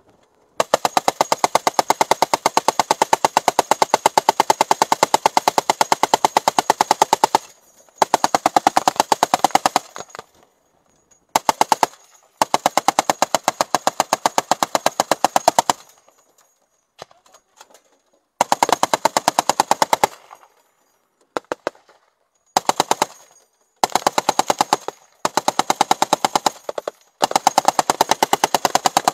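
A .50-calibre M2 Browning heavy machine gun fires at close range in long bursts of rapid shots, the first lasting about seven seconds, then about eight shorter bursts separated by brief pauses.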